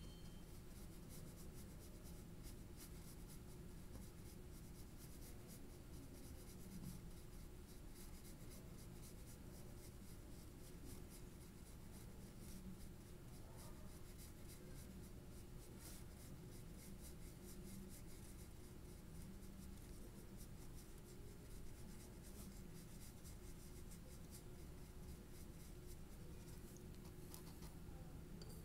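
Faint, repeated scratching strokes of a fine colouring tool on paper as a fashion sketch is coloured in, over a low steady room hum.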